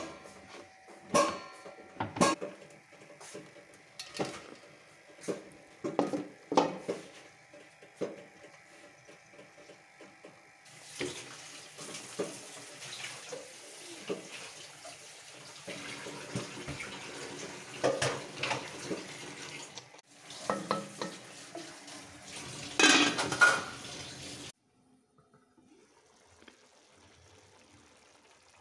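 Steel kitchen utensils knocking and clattering: bowls, spoons and a steel pot handled and set down in a string of sharp knocks. About eleven seconds in, a steady hiss starts and the clatter carries on over it. The hiss stops abruptly a few seconds before the end, leaving only a faint sound.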